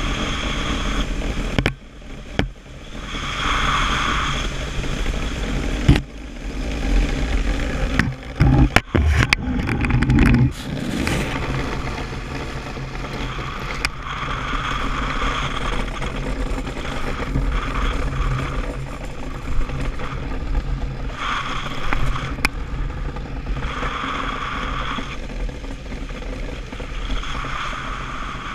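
DN iceboat's steel runners scraping and rumbling over flat lake ice while under sail, with a hiss that swells and fades several times. A few sharp knocks come partway through.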